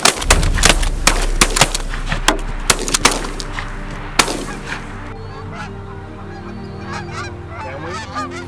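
Several shotguns firing in a rapid volley at geese over the first four seconds or so, with goose calls between the shots. After that, a flock of geese honking.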